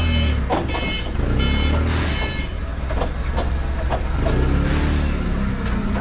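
Forklift engine running steadily close by while its warning beeper sounds in short repeated beeps during the first two seconds. Scattered clunks and knocks and a few short bursts of hiss come through over the engine.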